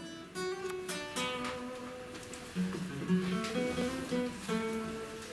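Classical acoustic guitar played solo, picking single notes and strummed chords that ring on between fresh attacks.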